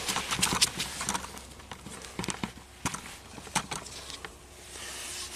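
Scattered, irregularly spaced clicks and taps from hands handling wires and test equipment.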